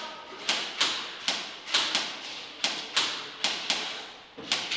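Airsoft guns firing in an indoor arena: about a dozen sharp, irregular cracks and smacks of shots and BBs hitting hard surfaces, each with a short room echo.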